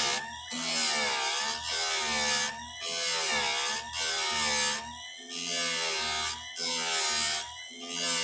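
Electric chainsaw-chain grinder working a cutter tooth: the wheel is brought down in repeated passes of about a second each, a gritty grinding hiss over the motor's hum, whose pitch sags under each pass.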